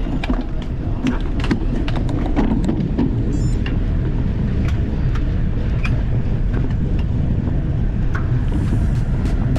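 Track bicycles setting off from a race start on a wooden velodrome, heard as a steady low rumble with scattered sharp clicks.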